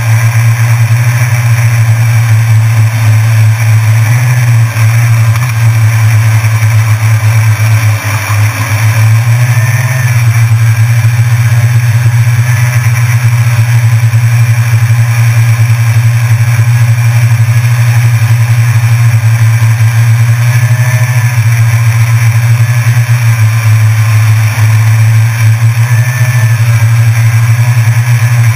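Small drone's propellers and motors buzzing steadily and very loud, as heard from the camera riding on the drone, with a brief dip in level about eight seconds in.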